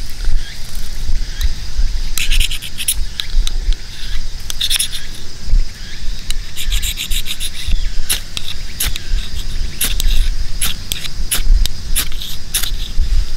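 Ferrocerium fire-steel rod being struck with a scraper over a tinder bundle: about a dozen sharp rasping strikes, coming more often in the second half, to throw sparks and light it. Insects, crickets by their sound, chirr steadily underneath.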